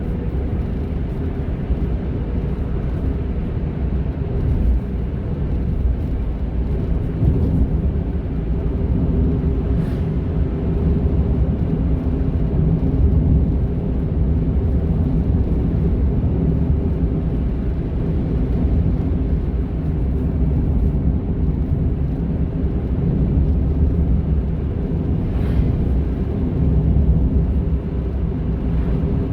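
Honda N-ONE kei car driving, with a steady low rumble of engine and road noise.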